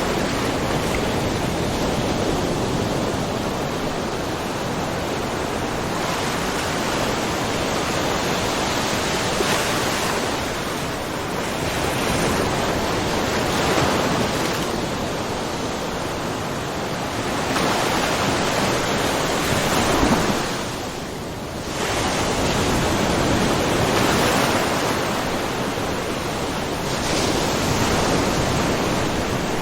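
Small ocean waves lapping and splashing on the shore of a rocky cove, a continuous wash that swells and eases every few seconds, with a brief lull about two-thirds of the way through.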